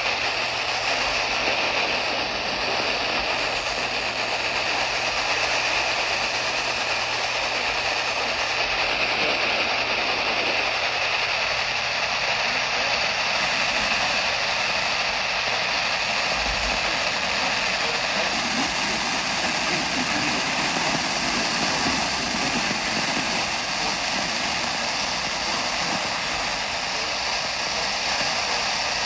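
Steady radio static hiss from a weather radio receiver between broadcasts, with a low steady hum underneath.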